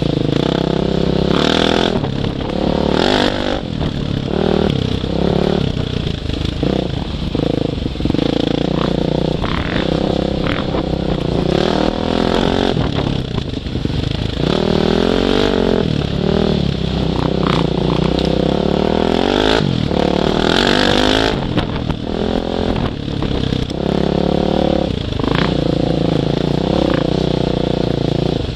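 Off-road motorcycle engine under way, its pitch rising and falling again and again as the throttle is opened and closed, with scattered knocks and clatter from the bike over rough ground.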